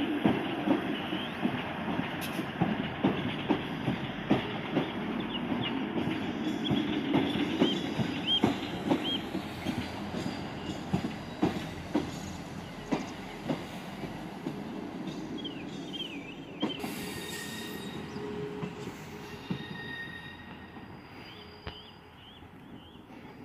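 ScotRail Class 158 diesel multiple unit running past, its wheels clicking in a steady rhythm over rail joints and pointwork. Short high wheel squeals come from the curving track, and the engine's low hum fades steadily as the train moves away.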